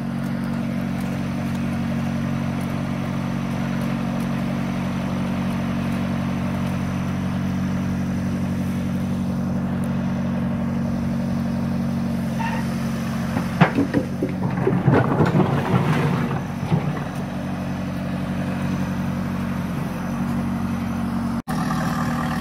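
A motor running steadily at an even low hum, like an engine idling. There is a cluster of knocks and rattles about two-thirds of the way through.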